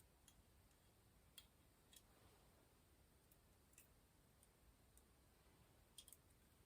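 Near silence with a handful of faint, sharp clicks spread out irregularly, two close together near the end: small parts handled during bicycle rear hub assembly with loose ball bearings.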